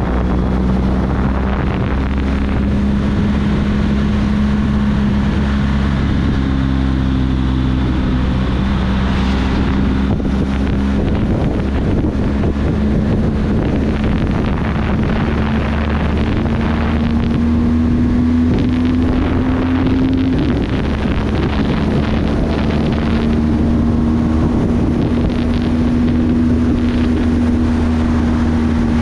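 Motorcycle engine running at a steady cruise, with wind rushing over the microphone. The engine note rises slowly and then drops suddenly about twenty seconds in.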